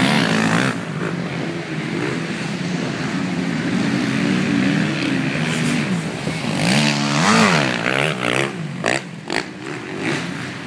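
Motocross bike engine revving and easing off as it rides the track, its pitch rising and falling again and again, with a quick sharp climb and drop about seven seconds in. A few short knocks near the end.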